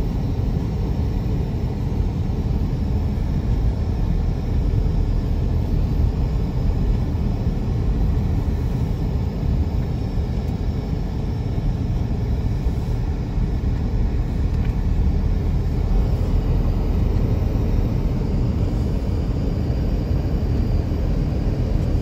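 Steady low rumble of a moving car heard from inside the cabin: engine and tyre noise at a constant cruising speed.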